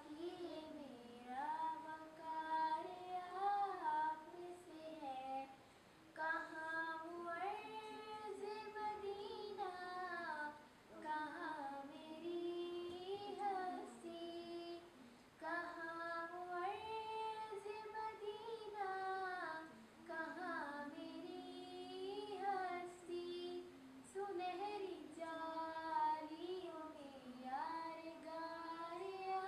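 A girl singing a naat solo and unaccompanied, in long sliding melodic phrases with short breaks for breath every few seconds.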